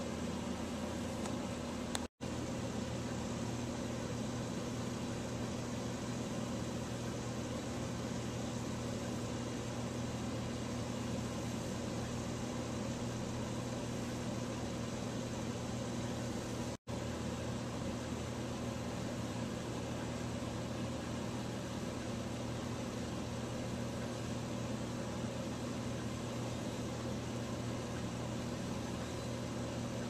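Electric fan running with a steady whir and low hum, cutting out for an instant twice, about two seconds in and again past the middle.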